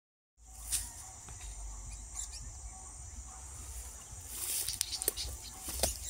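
Outdoor insect buzz, a steady high drone, with a few short bird chirps and scattered clicks over it and a low rumble underneath.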